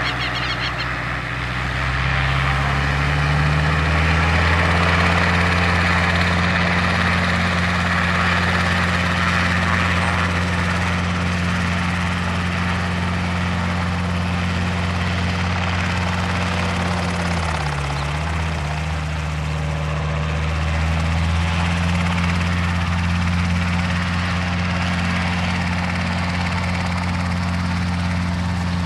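Engine and pusher propeller of a weight-shift microlight trike running in flight. The engine note rises over the first few seconds, dips briefly about eighteen seconds in, then climbs back and holds steady.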